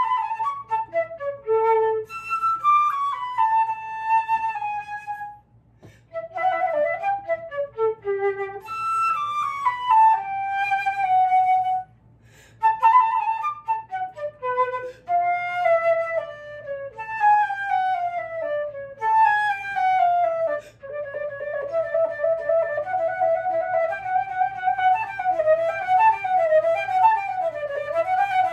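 Solo flute playing unaccompanied: phrases of quick falling runs broken by short pauses about five and twelve seconds in, then a longer unbroken passage of wavering turns that ends on a rising run.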